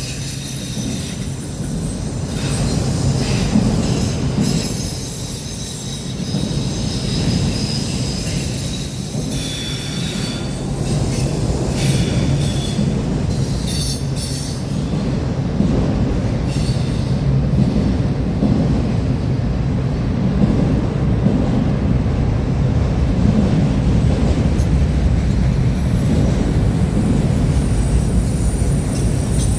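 Freight train cars rolling past on steel rails, a steady low rumble of wheels on track, with brief high-pitched wheel squeals in the first half.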